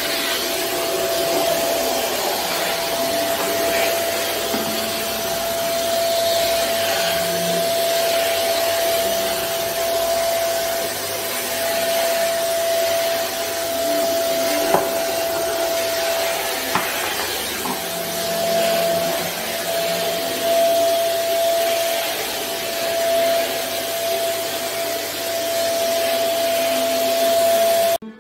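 Stick vacuum cleaner running steadily on a hard floor, with a constant high motor whine over the rush of suction. There are two sharp knocks around the middle, and the sound cuts off suddenly near the end.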